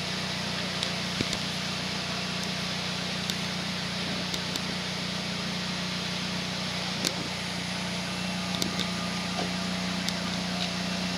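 Steady outdoor background noise with a constant low hum under a hiss, and a few faint short clicks now and then.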